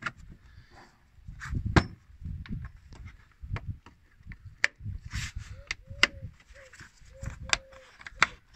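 Spring clips on a Suzuki Jimny's plastic air filter housing being worked open by hand: a series of sharp clicks, snaps and knocks on the plastic box, the loudest about two seconds in.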